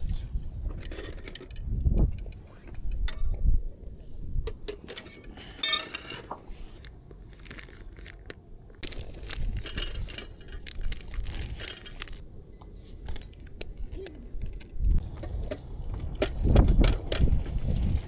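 Scattered clicks, scrapes and knocks, with a dense run of rattling clicks about six seconds in, over a gusty low rumble that swells near the start and again near the end.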